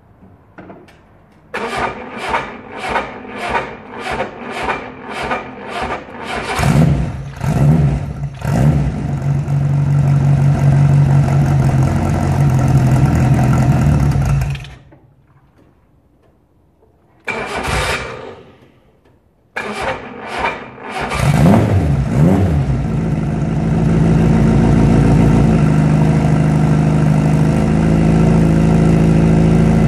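Fiat Abarth 850 TC's rear-mounted four-cylinder engine cold-started after a month standing: the starter cranks it in slow, even pulses for about five seconds until it fires, is blipped a few times and runs, then dies about halfway through. After a short burst that does not keep it going, it is cranked again, catches, is revved twice and settles into a steady idle.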